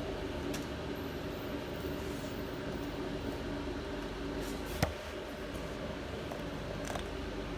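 Steady low background hum with faint handling ticks and one sharp click about five seconds in, as a 1/4 inch tubing connector is threaded by hand onto the float valve's taped threads.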